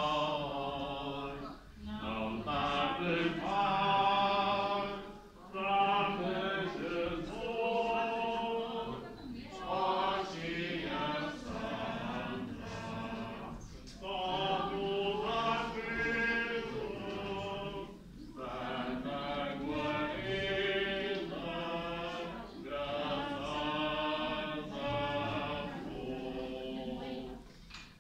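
A group of voices singing a church hymn during communion, line by line with brief pauses between phrases.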